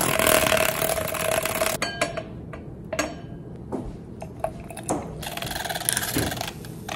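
Handheld battery milk frother whirring steadily as it whisks matcha in a glass, stopping about two seconds in. A few light clinks and a pour from a carton follow, then the frother starts whirring again near the end.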